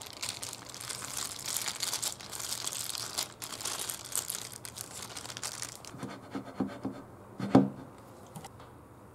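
A thin polyethylene cooking bag crinkling as it is peeled off a soft steamed omelette. After that come a few light knocks, one of them clearly louder, near the end.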